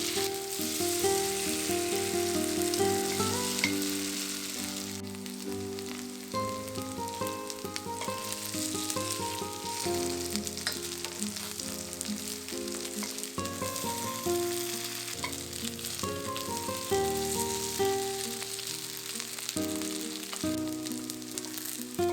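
Vegetable pancake batter frying in cooking oil in a pan, sizzling steadily; the sizzle is strongest for the first five seconds or so, then lighter. A melodic background music track plays over it.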